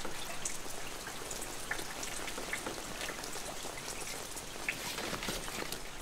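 Rain falling steadily onto standing floodwater, a dense patter of many small drops.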